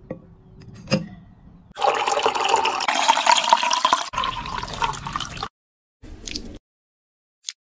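Water running into a container for about three and a half seconds, stopping abruptly, followed by a shorter burst of similar noise.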